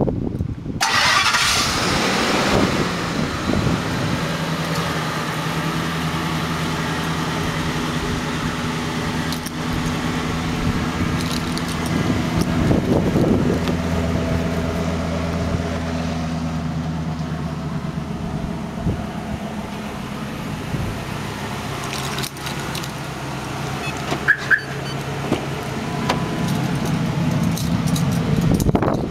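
A 2000 Ford Excursion's engine starting by remote start, catching about a second in, then idling steadily. There are a few knocks and clicks near the end.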